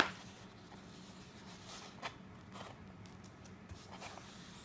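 Large sheet of paper being handled and folded, with soft rustling and a few brief crackles as it is bent over, the sharpest right at the start and another about two seconds in.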